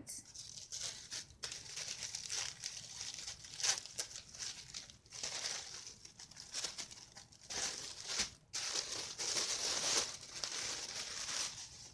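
Tissue paper rustling and crinkling unevenly as a wrapped package is opened by hand.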